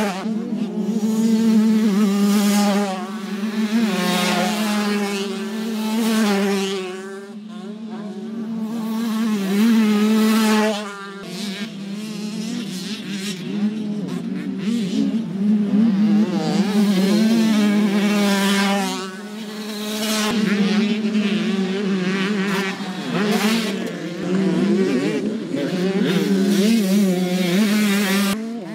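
Two-stroke motocross bike engines revving hard and passing, their pitch climbing and dropping with throttle and gear changes. There are brief lulls about seven and eleven seconds in.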